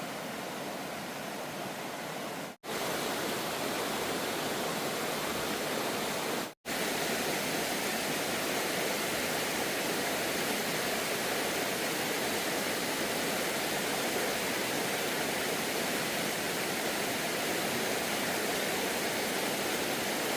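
Steady rush of a waterfall's falling water. It drops out abruptly twice, each time for a split second, in the first seven seconds.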